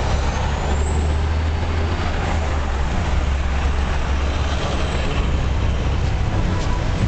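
Street traffic with buses passing close by: a steady low engine rumble over road noise.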